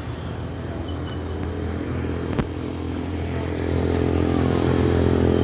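Street traffic: a motor vehicle engine running steadily nearby, growing louder over the last two seconds.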